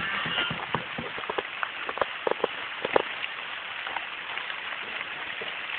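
Steady rain falling on leaves and grass, an even hiss, with a cluster of louder, sharper taps about two to three seconds in.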